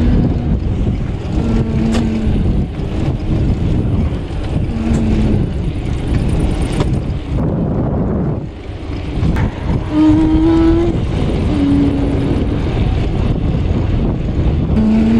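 Wind rushing over the microphone of a camera on a moving bicycle, a loud steady rumble. A few short steady tones sound over it now and then.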